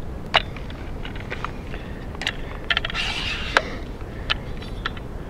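Scattered clicks and rattles of a Bog DeathGrip tripod leg being handled, with a short scrape about three seconds in.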